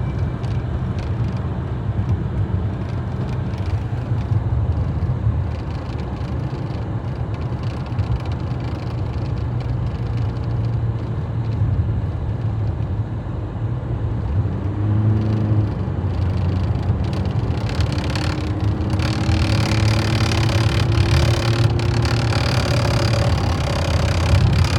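Fiat Freemont running with a steady low rumble. About halfway through a brief hum comes in, and later a faint whine rises slowly in pitch for a few seconds. This is an unexplained noise that the owner calls weird.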